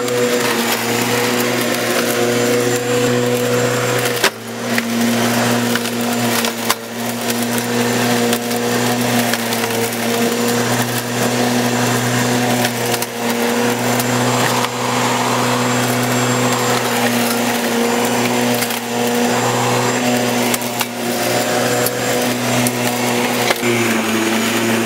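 Bosch Rotak 32 corded electric lawnmower running, its motor giving a steady hum while the rotary blade cuts through grass and weeds. The sound dips briefly about four seconds in and again near seven seconds.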